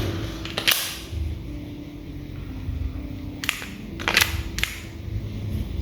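Sharp clicks and knocks from an airsoft Glock's magazine being released and seated against a homemade aluminium magazine release: one about a second in, then three close together in the second half.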